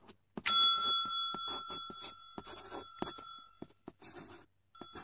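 Intro sound effects: the scratchy strokes of a marker scribbling, with a bright bell ding about half a second in that rings out over about three seconds, and a second, fainter ding near the end.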